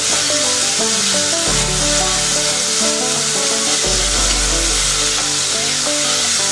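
Chopped onion and tomato sizzling in hot oil in a stainless-steel pot, stirred with a wooden spatula, with a steady hiss throughout. Background music with changing bass notes plays over it.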